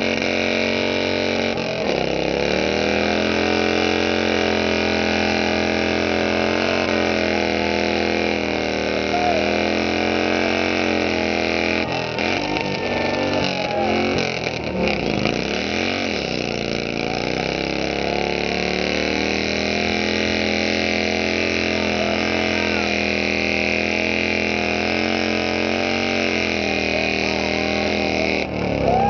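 Motorcycle engine held at high revs during a burnout, the rear tyre spinning in place and smoking. The revs waver and dip about halfway through, then hold steady again until a brief drop near the end.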